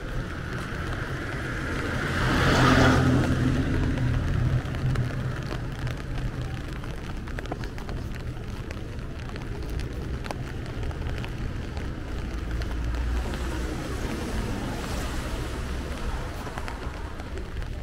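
Cars passing on a wet street, their tyres hissing on the wet road, one passing close and loud about three seconds in and a quieter one later, over a steady low traffic rumble.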